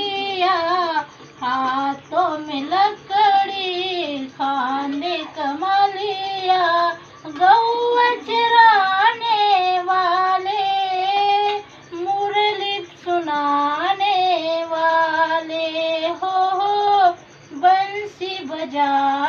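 A female singer singing a gaulan, a Marathi devotional song to Krishna, in long held notes with ornamented turns and short breaths between phrases.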